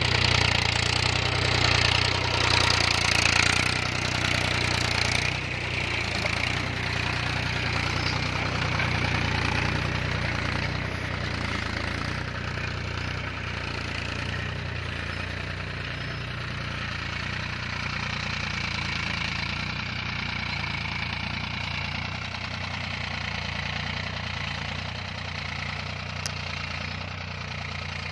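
Mahindra Yuvo tractor's diesel engine running steadily under load while pulling a tined cultivator through the soil. It is loudest for the first few seconds, then a little quieter as the tractor moves off.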